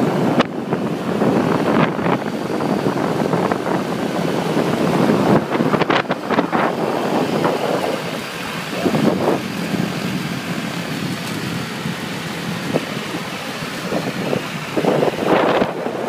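Traffic noise heard from a moving vehicle: motor scooters running alongside, with wind rushing over the microphone.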